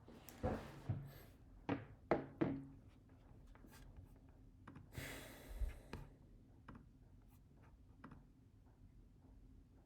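Handling knocks and thunks: about five sharp knocks in the first two and a half seconds, then a brief rustle of about a second some five seconds in, with a few faint ticks after.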